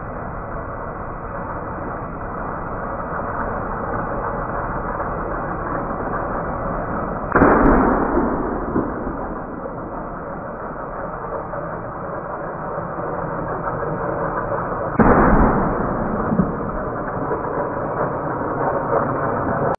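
A toy LEGO City train runs steadily along a wooden plank track, with two balloon pops, one about seven seconds in and another about fifteen seconds in, each a sudden loud bang that fades over about a second.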